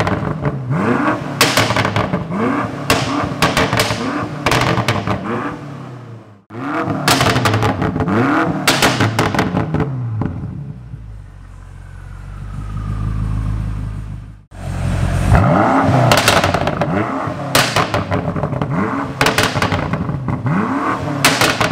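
BMW M5 F90's twin-turbo V8 through an Akrapovic exhaust, revved hard again and again: the pitch sweeps up and falls back with sharp crackles and pops between revs. Between the bursts it drops to a low rumble for a few seconds, and the sound cuts off abruptly twice.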